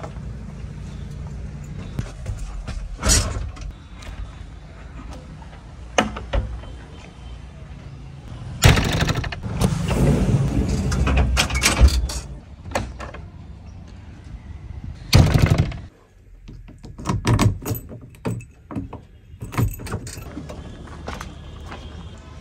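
JCB 3DX backhoe loader's diesel engine running steadily, with sharp clunks and knocks and about three seconds of louder machine noise around nine seconds in. After about sixteen seconds it is quieter, with scattered clicks and knocks.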